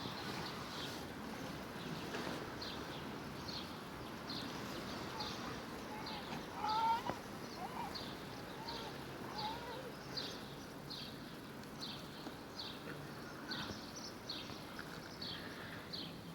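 Outdoor background noise with a short high chirp repeating about two to three times a second, and a few brief whistled calls about seven seconds in.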